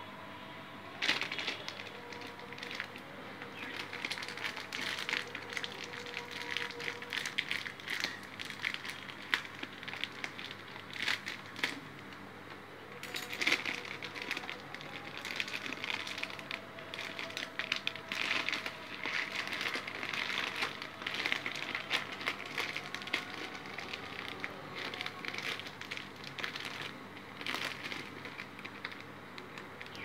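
A clear plastic bag of birdseed crinkling as hands squeeze and knead it, the seeds shifting and rustling inside. It goes in irregular crackles, loudest about a second in and again around thirteen seconds in.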